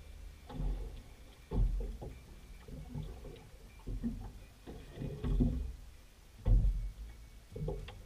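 Irregular deep thumps and knocks, roughly one a second, with water sloshing: waves slapping against the hull of a small fishing boat.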